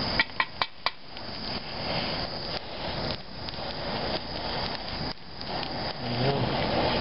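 Four quick metallic clicks in the first second, then the steady rushing of the fire burning out a rubber suspension bushing.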